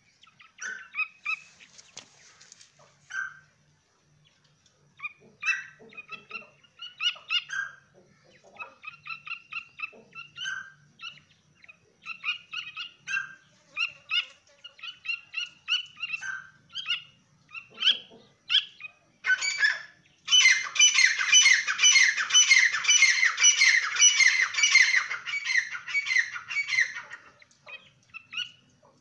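Young grey francolins calling: short squeaky chirps and call notes come one after another. About twenty seconds in they break into a dense run of rapid, loud calls that lasts about seven seconds and then stops.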